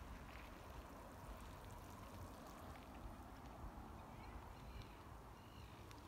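Faint, steady outdoor noise of shallow seawater with a low rumble of light wind on the microphone. A few faint high chirps come near the end.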